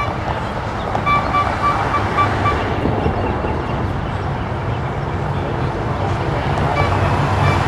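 Race convoy of cars and motorcycles driving past, a steady engine and road rumble that grows louder toward the end. About a second in comes a quick run of short high beeps, with another near the end.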